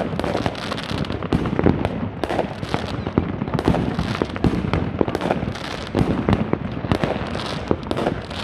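Many fireworks and firecrackers going off at once, a dense, unbroken run of bangs and crackles.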